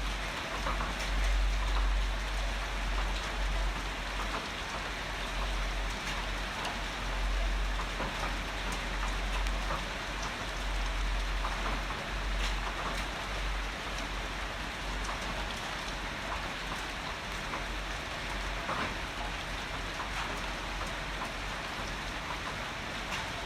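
Heavy rain falling steadily, with many individual drops ticking sharply on a nearby surface. A deep rumble underneath swells and fades.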